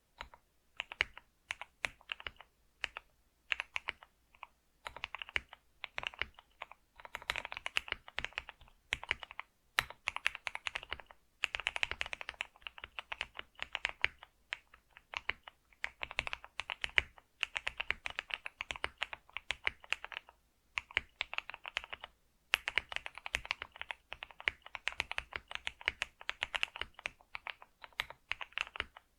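Computer keyboard being typed on: rapid runs of key clicks in bursts of a second or two, with short pauses between them.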